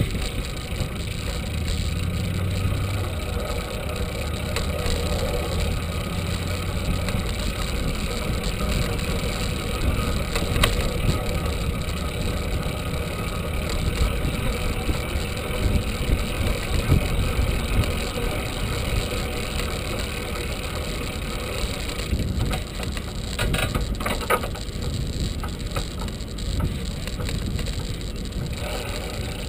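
Wind buffeting a bicycle-mounted microphone over the rolling noise of a bicycle riding on a paved path, a steady rumble with a few short knocks from bumps along the way.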